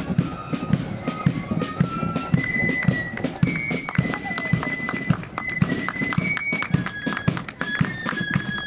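Marching flute band playing: flutes carry a high stepping melody while side drums and a bass drum beat the march in a steady stream of strokes.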